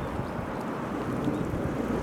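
Wind blowing across the microphone, a steady low rushing, with the sea washing gently at the shore beneath it.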